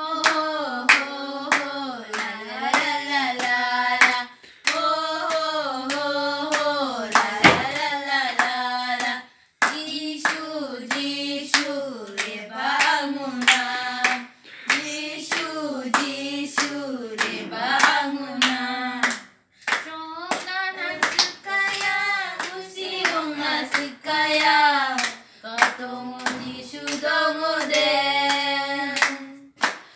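Girls singing a song together, with regular hand claps keeping the beat. The singing breaks off briefly twice between lines.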